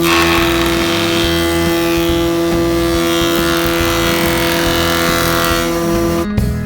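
Wadkin BTS 630 planer with a spiral cutterhead of 216 carbide knives planing a board: a steady machine hum under a loud cutting hiss that starts abruptly and stops a little after six seconds in.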